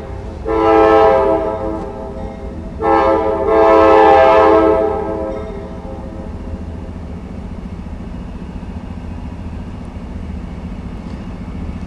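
Diesel locomotive's air horn sounding two blasts, a short one about half a second in and a longer one from about three to five seconds, over the steady low rumble of the approaching train.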